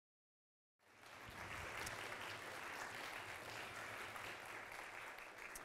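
Audience applauding, starting abruptly about a second in and fading out near the end.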